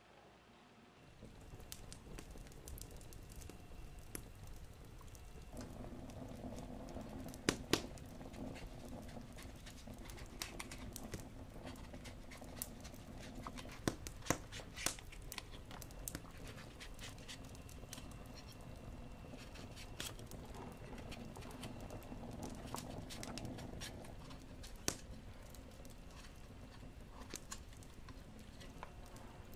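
Kitchen knife peeling raw potatoes by hand: light scrapes and scattered sharp clicks, over a faint steady hum.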